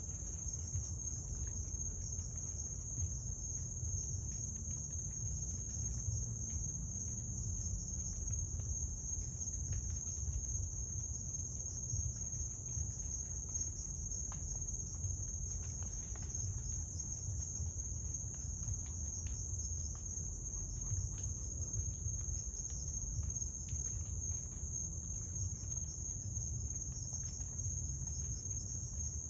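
Night chorus of crickets: a steady, high-pitched trill, over a low rumble.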